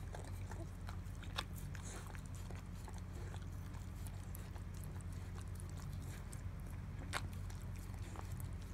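A dog lapping milk from a bowl: quick, irregular wet licking clicks, with a couple of sharper ticks as the tongue hits the bowl. There is a steady low hum underneath.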